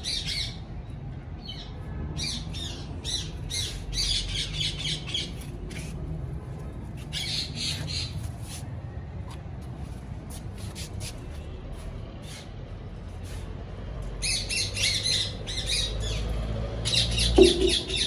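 Ringneck parakeet giving harsh, rapid squawks in short runs, about six runs with pauses between them, the loudest near the end. A steady low rumble lies underneath.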